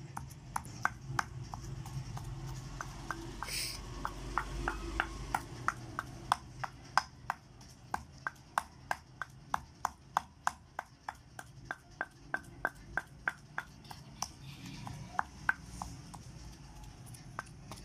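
Pestle pounding a wet spice paste in a mortar: steady sharp knocks, about two to three a second, each with a short ring.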